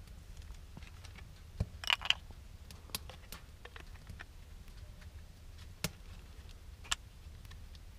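Scattered light clicks and knocks of hands handling food and utensils over a small wooden board, with a crackly double tap about two seconds in and a few sharper ticks later.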